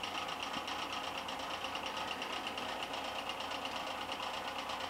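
Steady, machine-like background noise with a fine, rapid flutter and a hiss pitched fairly high; no singing.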